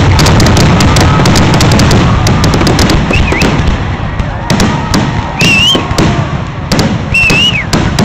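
Fireworks finale barrage: rapid, overlapping aerial shell bursts and crackling, densely packed at first and thinning to separate loud booms in the second half.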